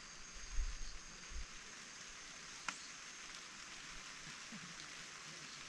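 Steady outdoor hiss, with low rumbles in the first second and a half and a single sharp click a little before the middle.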